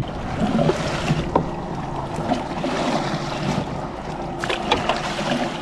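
Fishing boat on open ocean water: a steady wash of water and wind noise on the microphone, with a few light knocks about four and a half to five seconds in.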